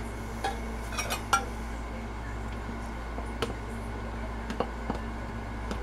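A utensil clinking against a glass mason jar and a plastic canning funnel as watermelon rind preserves are packed into the jar. A few scattered sharp clinks, the loudest a little over a second in.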